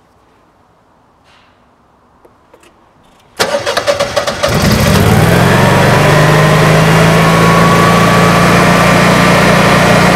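A 17 kW Honeywell standby generator's 992 cc engine starting from cold: it cranks about three and a half seconds in, catches within about a second and settles into a steady run, with a whine that rises in pitch over the next couple of seconds and then holds steady.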